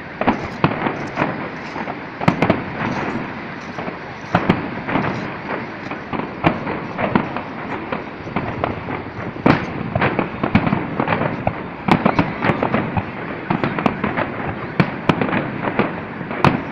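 Fireworks display going off without pause: a continuous crackle of many bursts, with sharp bangs of aerial shells every second or so at irregular intervals.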